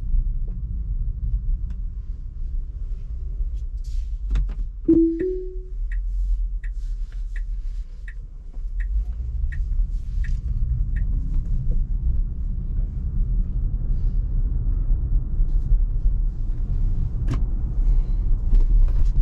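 Road and tyre rumble inside a Tesla's cabin on the move. About five seconds in, a short two-note chime rises, followed by a run of evenly spaced turn-signal clicks, about three every two seconds, lasting some six seconds.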